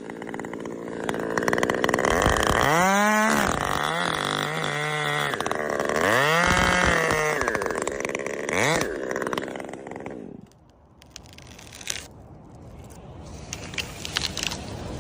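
Chainsaw engine revving up and down several times as the throttle is worked, then stopping about ten seconds in, followed by a few sharp knocks.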